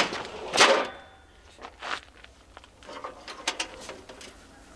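Grill tray running out on long metal drawer slides, with a loud rasp about half a second in, then light clicks and knocks as the grill's lid is lifted open.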